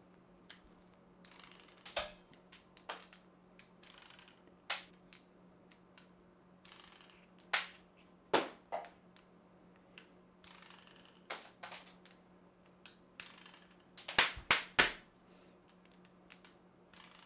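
Small wooden toy catapult being handled and tried out, its throwing arm pressed down and released to give a dozen or so sharp clicks and snaps at irregular intervals, with a quick run of three or four near the end, and light rustling of handling in between.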